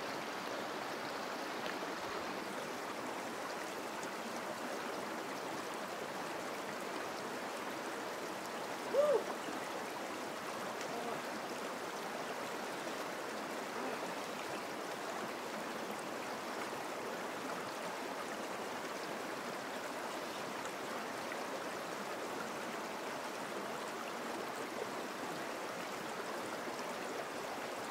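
Creek water running steadily over and between boulders into a pool. One short cry stands out about nine seconds in.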